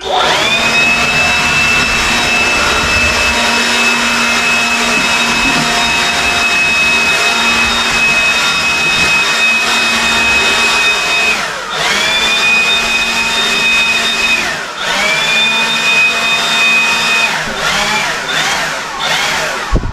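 Handheld electric leaf blower running at full speed with a high whine, rising as it spins up at the start. It is let off and restarted twice partway through, then shut off after a few short blips near the end.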